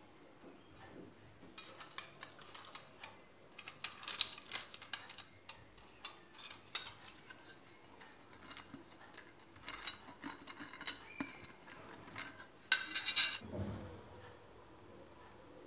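Irregular clinks and clatter of dishes and utensils being handled on a granite kitchen counter. The loudest burst of clatter comes near the end, followed by a dull thump.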